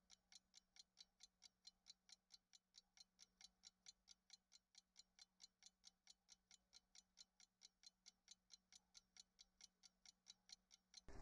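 Faint, even clock-like ticking, about four ticks a second, with no other sound behind it.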